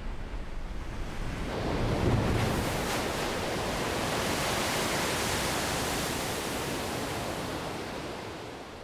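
Ocean surf breaking on a rocky shore: a rushing wash of surf that swells about a second and a half in, is loudest shortly after, then holds and fades near the end.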